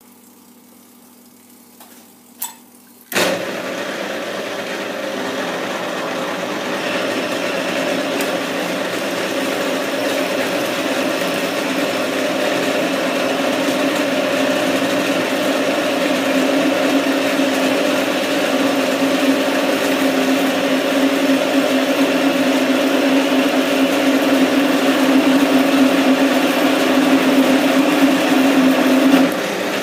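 Metal lathe starting up suddenly about three seconds in, then running steadily while a carbide DNMG insert turns the part under flowing coolant. A steady hum grows louder through the second half and drops away just before the end.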